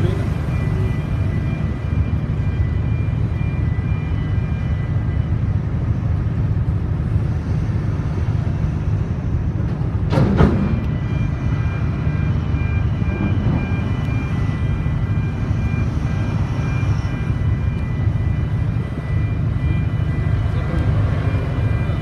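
Ship's machinery running: a steady low rumble with a couple of faint high whines over it. One sharp knock about ten seconds in.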